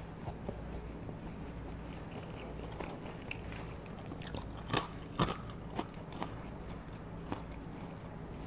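A person chewing McDonald's French fries close to a clip-on microphone: quiet mouth sounds with a handful of short crisp clicks in the second half, the loudest about halfway through.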